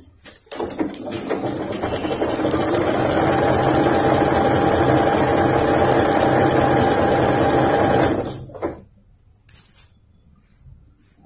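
Usha Janome Dream Maker 120 computerized sewing machine stitching a programmed pattern: it picks up speed over the first few seconds, runs steadily, then stops about eight seconds in.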